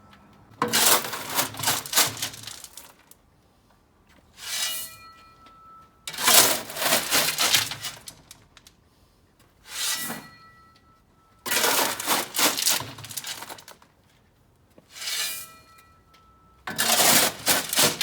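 Shovel working gravel in a steady rhythm: a short scrape with a slight metallic ring, then a longer crunching rattle of stones, repeating about every five and a half seconds.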